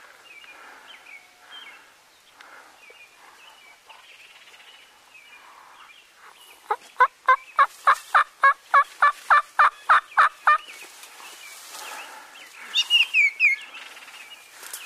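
Turkey yelping: a loud run of about fourteen evenly spaced yelps, about three and a half a second, then a shorter burst of higher, falling calls a couple of seconds later.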